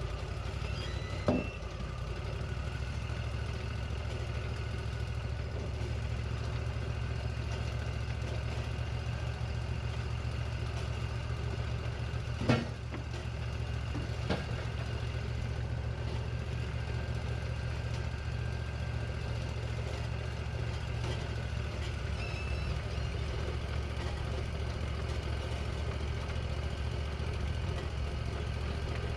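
Wood-Mizer LT40 portable sawmill's engine running steadily, with sharp knocks about a second in and twice near the middle.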